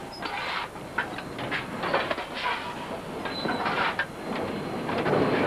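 Steel coal shovel scraping and clattering in loose coal as a fireman stokes a steam locomotive's firebox, in short irregular strokes. The locomotive's steady running noise sits underneath.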